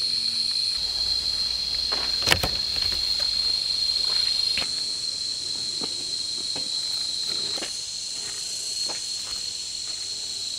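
Insects droning steadily at one high, even pitch. There is a sharp knock about two seconds in, and small scattered knocks from handling.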